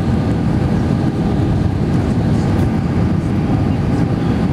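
Steady low rumble of a jet airliner's engines and rushing air heard inside the passenger cabin during the approach to landing, with a faint steady whine above it.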